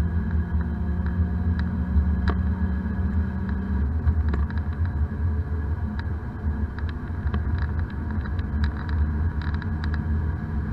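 Daihatsu Esse's three-cylinder engine and road noise heard from inside the cabin while driving at speed: a steady low drone, with the engine note stepping up in pitch about four seconds in, and scattered light clicks and rattles.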